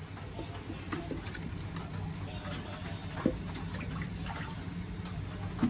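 Liquid being poured from a cup into a large cooking pot over a wood fire, with small clicks and two sharp knocks, about three seconds in and near the end.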